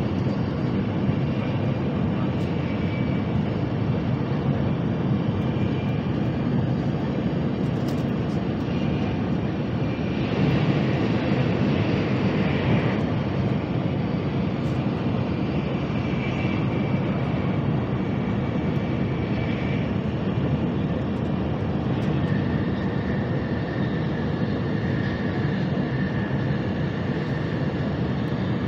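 Steady rushing cabin noise of a Nozomi Shinkansen bullet train running at high speed, heard from inside the passenger car, with faint high whines coming and going. It swells slightly for a few seconds about ten seconds in.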